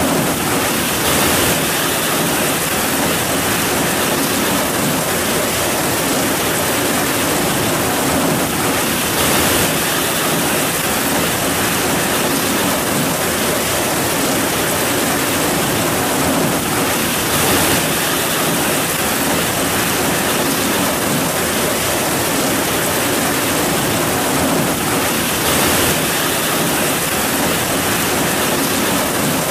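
Heavy rain pouring down steadily, a dense even hiss that briefly swells a little louder about every eight seconds.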